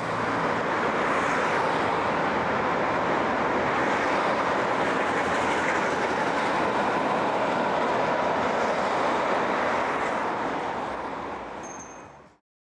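City street traffic with a tram running along its rails: a steady noise that fades out shortly before the end.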